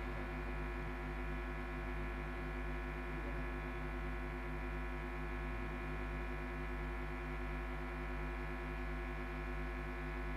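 Steady electrical hum from the sound system, a low even drone with several fixed tones above it that does not change.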